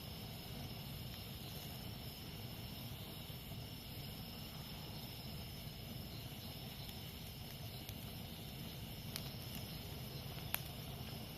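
Campfire burning with soft crackling and a few sharp pops, the loudest near the end, over a steady drone of jungle insects.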